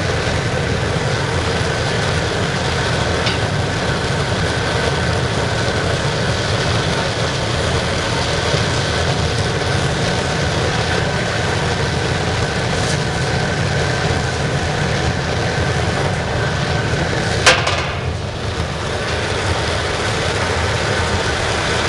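Used-motor-oil burner firing a large scrapping furnace, running with a steady roar from the air-atomized oil flame. A single sharp knock sounds once, late on.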